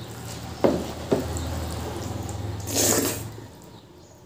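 Dal poured from a small bowl onto rice in a metal plate and mixed in by hand: wet splashing and squelching, with two sharp clinks about half a second apart near the start and a louder wet burst about three seconds in, over a low steady hum.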